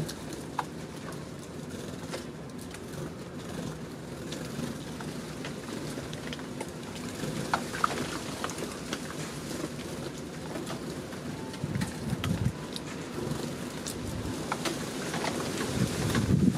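Steady rain with drips ticking on a balcony, while Eurasian tree sparrows feed and give a few short chirps. Two louder low rumbling bursts come about halfway through and near the end.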